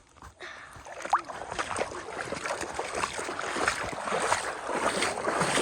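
Water splashing and sloshing in a river: a dense run of small splashes that starts about half a second in and grows steadily louder.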